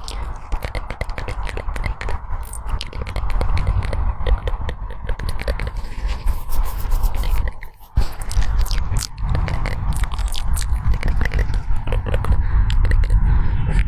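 Dense, irregular crackling and scraping over a steady low rumble, briefly dropping away just before eight seconds in.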